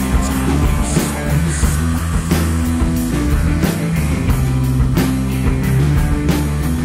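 Studio recording of a rock band playing: guitars, bass guitar and a drum kit keeping a steady beat.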